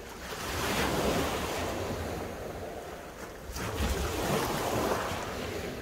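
Small sea waves breaking and washing up a shingle beach, two swells of surf a few seconds apart, with wind rumbling on the microphone.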